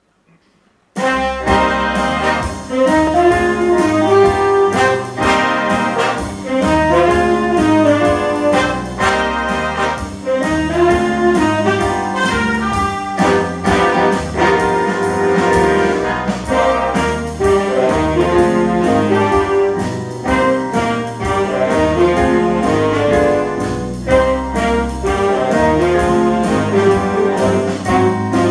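Big band playing a swing jazz number live, with the saxophone and brass sections and piano all coming in together about a second in.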